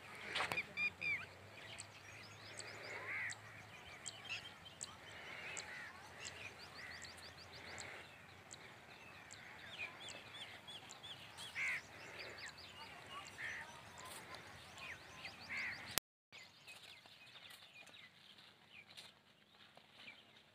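Birds calling and chirping, many short overlapping calls over a quiet outdoor hiss; after a break about three-quarters of the way through, the calls are fainter.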